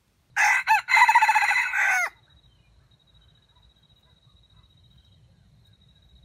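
Wild red junglefowl rooster crowing once, a stuttering crow of about two seconds: a short note, a brief break, then a longer note that ends in a falling drop.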